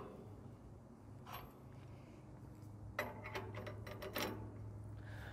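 Crank handle turning a trailer's corner stabilizer jack, giving a scatter of light metallic clicks and knocks, clustered about three to four seconds in, over a low steady hum.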